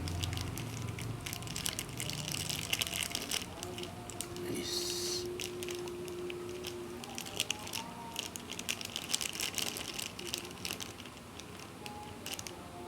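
Food packaging being handled and opened: scattered crinkling and clicking, with a short hiss about four and a half seconds in.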